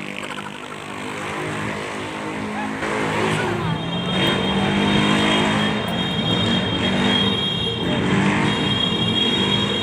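Motorcycle and scooter engines running, with a thin steady high whine coming in about four seconds in.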